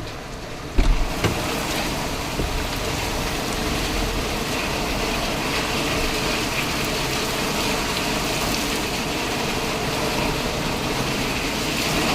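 Rain falling steadily, an even hiss that starts after two sharp thumps about a second in.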